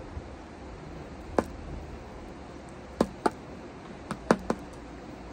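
A vintage Diapede tobacco pipe knocked bowl-first against the palm of a hand to empty out the ashes: about six short, sharp taps, irregularly spaced, with a quick group of three near the end.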